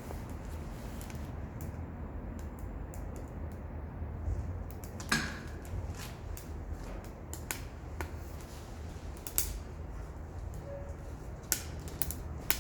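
Wood fire burning in a Solo Stove wood stove, crackling with a handful of sharp pops over a low steady rumble; the loudest pop comes about five seconds in.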